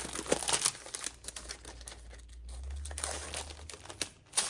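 Packaging crinkling and rustling as items are taken out of a planner kit box. The crackles are densest in the first second and then thin out, with a low rumble underneath that swells about three seconds in.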